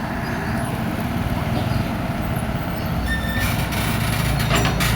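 Komatsu hydraulic excavator running with a steady diesel engine rumble. In the last second and a half it is joined by a rattle of sharp clattering knocks.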